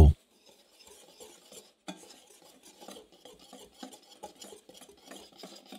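Wire balloon whisk stirring dry flour mix (flour, sugar, salt, baking powder) in a glass bowl: soft, irregular scratching with light ticks of the wires against the glass, a little clearer after about two seconds.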